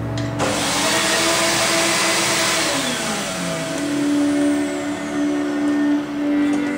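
Suction motor of a screen-printing vacuum table switching on about half a second in, then running with a steady rushing hiss. Choral background music plays underneath.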